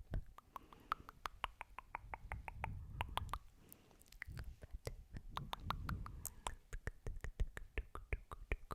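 Close-microphone ASMR hair-plucking sounds: a rapid, uneven run of sharp clicks and snaps, several a second, over soft breaths into the microphone.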